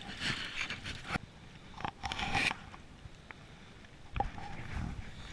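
Splashing and rustle as a hooked coho salmon thrashes at the surface, then scraping and handling noises with a few sharp clicks as the landed fish is held.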